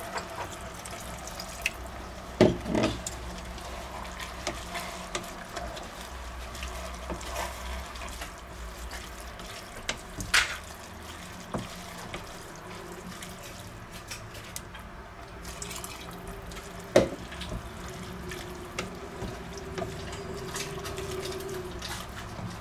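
Water pouring from a plastic measuring jug into a steel pot of fried mince, onion and leek, then a wooden spoon stirring the wet mixture. A few sharp knocks stand out, the loudest about two seconds in and again later.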